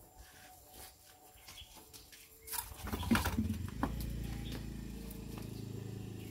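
Cloth sheeting rustling and scraping as it is handled and spread over a heap, with scattered light knocks. About three seconds in, a steady low engine-like hum starts and keeps running.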